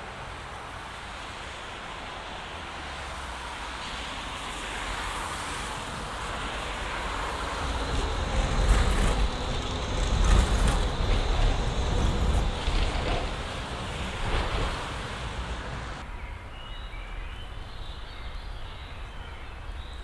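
Electric city tram passing close by on a wet street, its rumble and rolling noise swelling to a peak about halfway through and then fading, over steady street traffic. After an abrupt change near the end, a quieter background with faint bird chirps.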